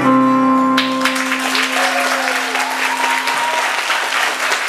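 A live band's final note held steady for over four seconds, while a roomful of guests breaks into applause about a second in.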